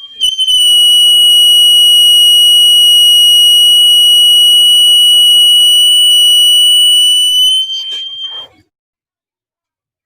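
Buzzer of a homemade IR-sensor fire alarm circuit sounding one continuous, loud, high-pitched tone. Near the end it stutters and cuts off, about eight seconds in.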